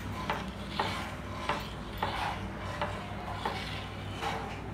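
Black plastic slotted spatula stirring a thin milk mixture in a non-stick pan, scraping the pan bottom in steady strokes about every two-thirds of a second, seven in all.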